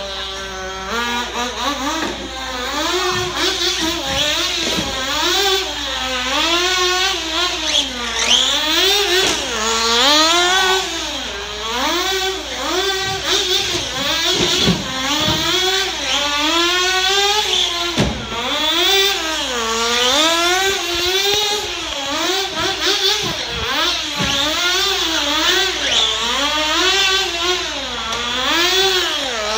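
Sportwerks Chaos 1/16-scale nitro RC buggy engine revving up and down over and over as it is driven around a track, its pitch rising and falling every second or two.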